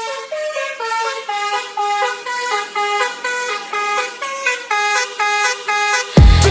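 A tune played in short honking car-horn notes in quick succession, stepping up and down in pitch. Near the end a loud dance beat with heavy bass drums comes in.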